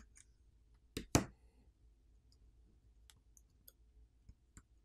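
Small sharp clicks of a metal pry tool on a smartphone's subboard as coaxial antenna cable connectors are popped off, the loudest two close together about a second in. A few faint ticks follow.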